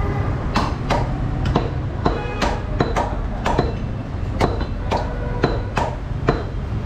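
Butcher's cleaver chopping beef on a wooden chopping block: a string of sharp chops at about two a second, irregular, some with a brief metallic ring from the blade.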